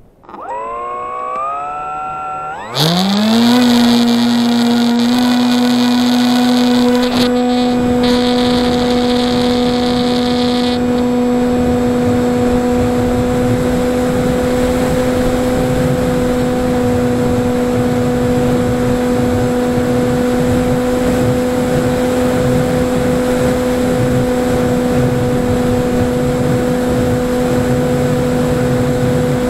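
Electric motor and propeller of a Falcon Evo FPV flying wing spinning up in a rising whine, stepping up to full throttle a few seconds in, then running at one steady high drone, heard close from the onboard camera. A hiss of wind rush lies over it for about the first ten seconds.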